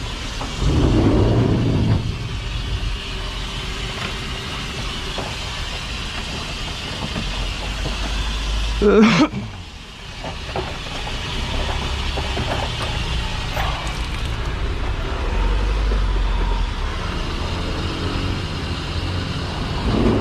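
Engine-driven high-pressure drain jetter running steadily with a low rumble and water spray, while jetting a blocked sewer line. There is a short loud burst about nine seconds in, after which the sound briefly drops.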